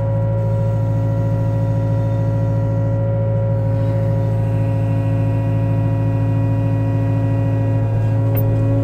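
Small excavator's diesel engine running steadily at close range, a constant hum with a higher hydraulic-type whine joining about four seconds in as the boom moves.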